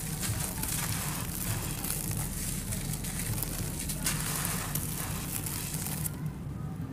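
Dry, grainy sand-and-cement blocks crumbling in the hands: a continuous gritty crackle of chunks breaking apart and grains and dust pouring down. The crackle thins out about a second before the end.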